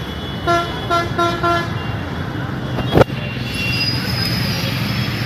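A vehicle horn tooting four times in quick succession over steady street traffic noise, with a single sharp click about three seconds in.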